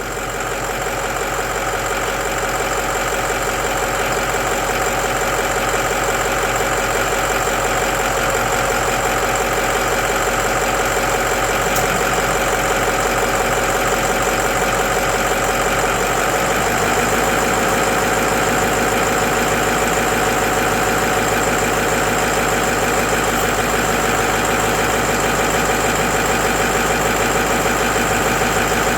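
Ford 6.0 Powerstroke V8 turbo-diesel idling steadily with its diesel clatter, with the alternator carrying the extra electrical load of the lights, AC blower and radio. The level rises slightly over the first few seconds, then holds steady.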